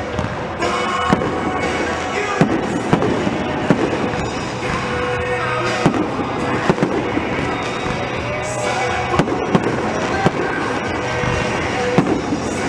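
Fireworks display with sharp bangs going off irregularly, roughly once a second, over music playing throughout.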